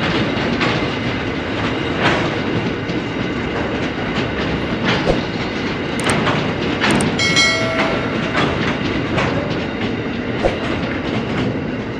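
Empty narrow-gauge ballast hopper wagons rolling past, their wheels clacking over the rail joints in an uneven run of clicks over a steady rumble.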